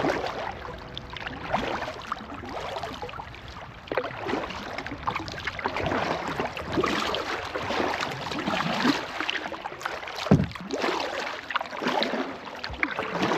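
Kayak paddle strokes splashing and dripping in river water, coming in irregular clusters, with one loud low knock about three-quarters of the way through.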